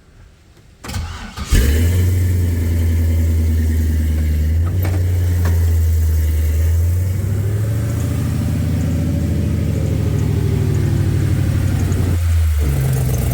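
Plymouth 'Cuda engine cranked briefly and catching about a second and a half in, then running at a fast idle that settles slightly lower. The exhaust leak at the header down pipe is still there, so the running note carries the leak the repair was meant to cure.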